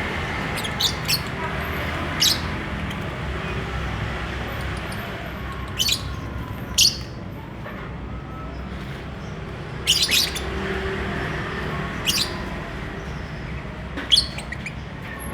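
Lovebirds giving short, shrill chirps, singly or in quick pairs every second or two, over a steady low background noise.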